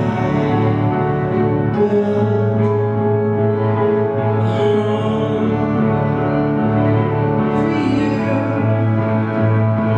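Instrumental music for the dance, with long held notes over a steady low note and no clear beat.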